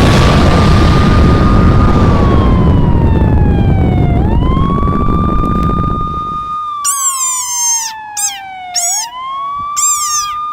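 A siren wailing, its pitch rising and falling slowly, under a loud burst of noise that fades away over the first six seconds or so. From about seven seconds in, a string of short, high, squeaky chirps joins the wail.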